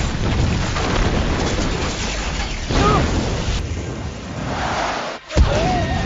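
Movie blast sound effects: a continuous heavy explosion and shockwave rumble. Just after 5 s there is a brief dip, then a sharp loud boom, followed by a man yelling.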